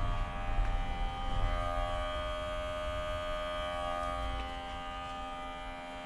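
A smoke leak tester's small electric air pump running steadily, a buzzing hum with a whine, as it pushes smoke into the engine's intake.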